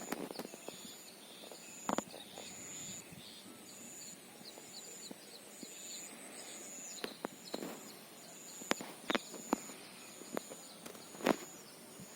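Rural insect chorus: a steady high whine with an insect chirping in short high pulses a little more than once a second, faint bird chirps in the first few seconds, and a few sharp clicks scattered through.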